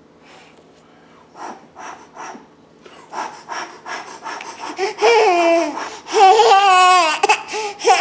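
A baby vocalizing: short breathy sounds at first, then loud, high-pitched babbling calls that wobble up and down in pitch from about five seconds in.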